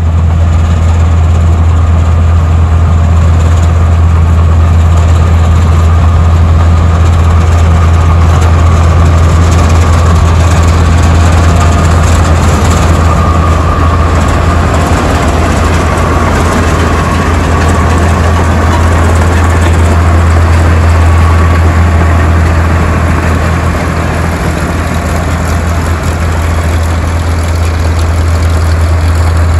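New Holland 1545 rice combine harvester's diesel engine running steadily as the tracked machine drives by at close range, a loud deep hum. It grows a little quieter in the last few seconds as the machine moves away.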